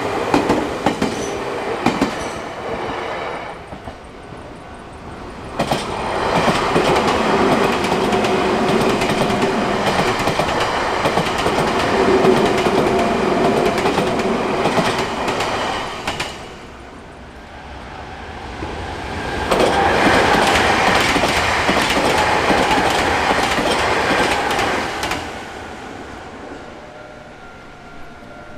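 Electric trains passing over a railroad crossing, their wheels clattering over the rail joints. The first pass swells about five seconds in and fades around sixteen seconds; a second, shorter pass follows about twenty seconds in.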